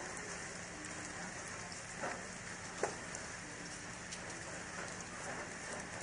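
Heavy rain falling steadily, with a couple of louder single drop hits about two seconds in and just before three seconds.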